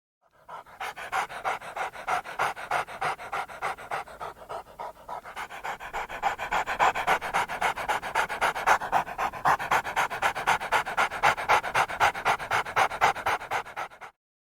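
Dog panting hard in a rapid, even rhythm of quick breaths, louder in the second half, stopping abruptly near the end.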